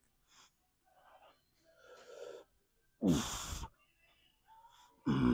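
A man's forceful, grunting exhales of effort during a set of a kneeling lat exercise. There are two loud ones about two seconds apart, each falling in pitch, and quieter breaths in between.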